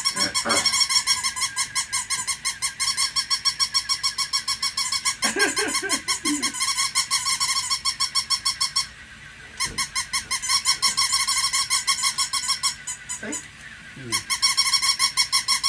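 Battery-powered toy puppy barking: rapid, high-pitched electronic yapping at about seven yips a second, breaking off briefly twice.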